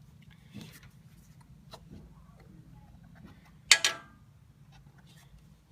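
Faint scattered ticks and taps of hand tools and parts on metal, with one sharp metallic clank that rings briefly a little past the middle, as a starter is being fitted to a truck.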